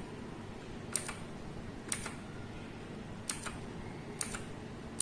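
Keychron K8 mechanical keyboard key pressed four times, roughly a second apart, each press a sharp double click of the key going down and coming back up. This is the LED key being tapped to step through the RGB backlight modes.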